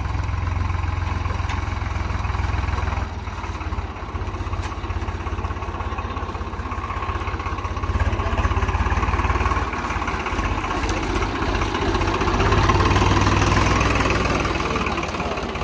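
Heavy diesel engine idling with a steady low chug, running louder for a couple of seconds about eight seconds in and again near the end.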